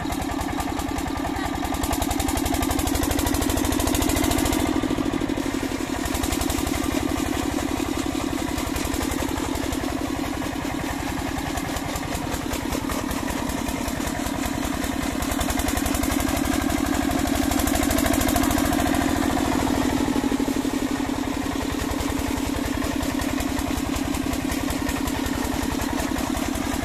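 Lister-type single-cylinder diesel engine of a borewell water pump set running steadily with a fast, even beat. Once the pump is primed and drawing, water gushes and splashes from its outlet.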